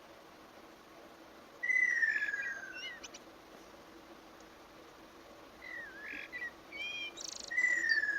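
A kingfisher calling: a long whistle falling in pitch, once about a second and a half in and again near the end, with shorter chirps and twitters between.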